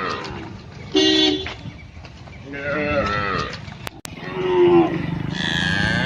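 Cows mooing: a series of short calls, then a longer moo starting near the end.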